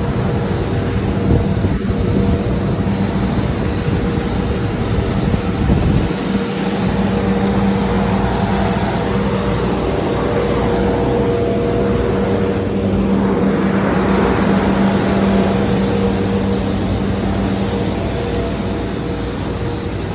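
Airbus A320 airliner running, a loud steady hum and whine with several held tones over a rushing hiss.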